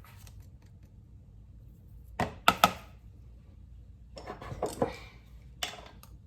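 Kitchen utensils and containers being handled while seasoning is added to the chicken: a few sharp taps and clicks about two seconds in, a short clatter with some rustling about four to five seconds in, and one more click near the end.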